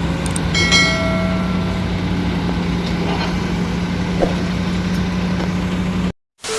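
Diesel engine of a crawler excavator running steadily, with a brief high squeal about a second in. The sound cuts off suddenly near the end and gives way to a burst of hiss.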